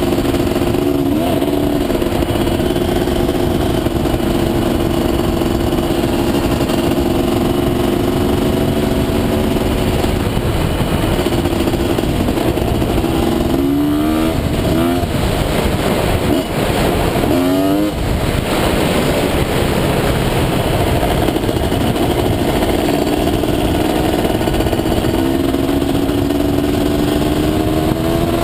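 Honda ATC250R three-wheeler's two-stroke single-cylinder engine running at steady revs, then climbing and dropping several times in quick succession about halfway through before settling and rising again near the end. Heavy wind noise on the helmet microphone runs under it.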